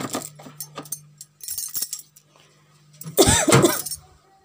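Small clicks and knocks of dishes and containers being handled on refrigerator shelves, over a steady low hum. About three seconds in comes a short, loud voice-like sound.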